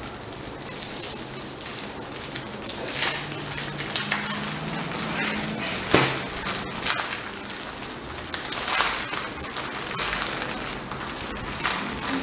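Clear plastic packaging of diamond painting drill bags crinkling and rustling as it is handled, with a few sharper crackles.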